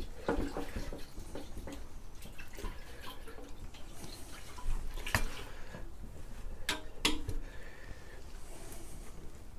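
Petrol sloshing inside a motorcycle fuel tank as the tank is tipped to run fuel over to the tap side, with a few sharp knocks of the tank being handled partway through.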